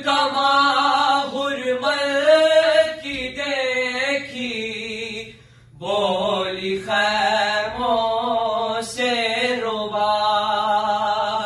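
Two male voices chanting an Urdu mourning salam (a lament recitation) without instruments, in long, wavering held lines. There is a short break in the singing about five and a half seconds in.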